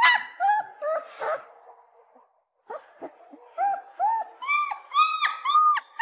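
Puppy whining and crying: short, high-pitched whimpers that each rise and fall in pitch. A few come in the first second or so, then a pause, then a steady run of cries repeating about every half second.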